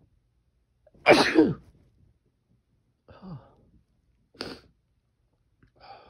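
A person sneezing: one loud, forceful sneeze about a second in, followed by three shorter, quieter sounds.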